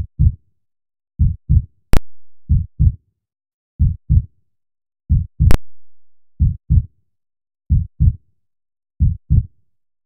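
Heartbeat sound effect: slow, low double thumps (lub-dub), one pair about every 1.3 seconds. Two sharp clicks, each trailing off, cut in about two seconds and five and a half seconds in.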